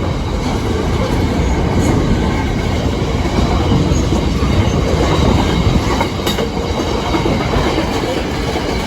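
A train passing close by over the level crossing, its wheels clattering on the rails with a steady heavy rumble.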